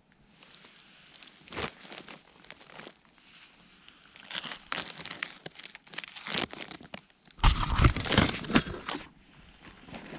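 Pebbles crunching and shifting underfoot close to the microphone, with scattered small clicks. About seven and a half seconds in, a louder burst of rubbing and knocking as the camera is handled and set down again on the stones.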